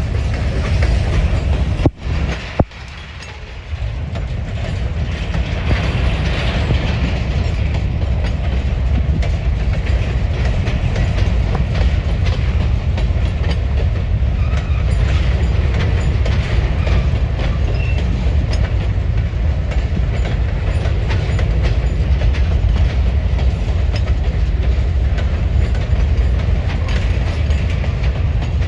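CSX freight train rolling past close by: a steady low rumble with wheels clicking over the rail joints, briefly dropping about two seconds in.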